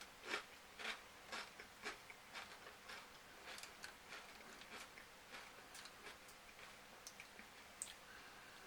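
Faint eating sounds of a person chewing food, soft mouth clicks about twice a second at first, growing fainter and sparser.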